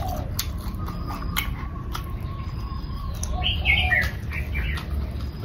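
Birds calling: a dove's low cooing, with higher chirps about three and a half seconds in. Scattered sharp clicks run through it.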